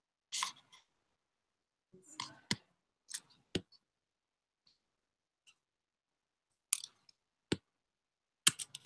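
Quiet, scattered sharp clicks and short rustles, a second or so apart, with a quick run of three or four clicks near the end.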